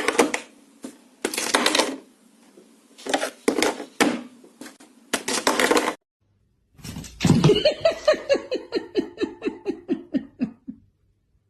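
A burst of rapid laughing pulses, about six or seven a second, falling steadily in pitch and fading out over about four seconds. It follows several short, loud bursts of sound.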